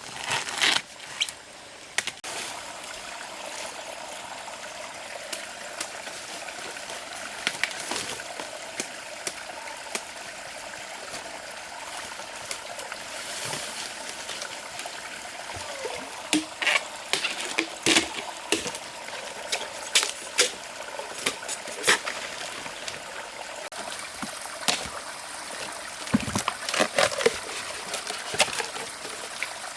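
Running water trickling steadily, with scattered short clicks and knocks over it.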